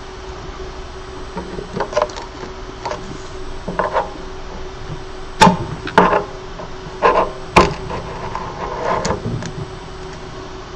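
A hand tool knocking and clicking against the screen and frame of a Creality Halot Mage Pro resin printer as the LCD screen is prised at: a series of sharp taps, the loudest about halfway through. The screen will not come free, glued in place by spilled resin. A steady hum runs underneath.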